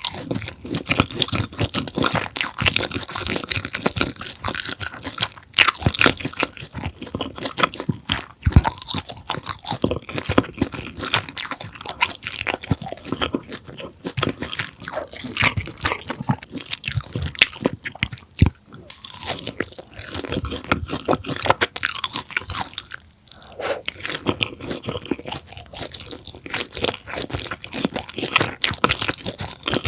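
Close-up crunching and chewing of a breaded, deep-fried pork cutlet (donkatsu), crisp crust crackling with each bite. Dense, irregular crunches throughout, with a few brief pauses.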